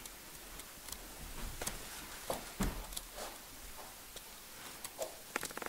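Faint scattered taps, knocks and rustles of people and a small dog moving about a furnished room, with a quick run of taps near the end.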